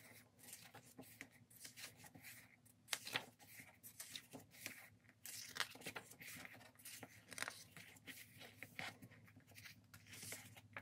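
Faint paper rustles, flaps and soft taps of a K-pop album's photobook pages being turned and smoothed by hand, many small scattered sounds.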